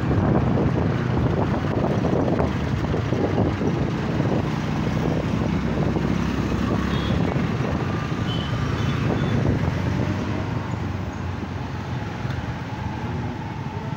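Motorcycle engine running while riding through town traffic, with steady road noise from the surrounding vehicles; the sound drops a little near the end.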